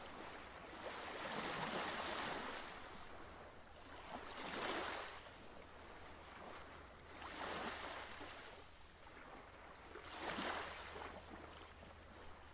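Ocean surf: faint waves breaking and washing in, swelling four times about three seconds apart.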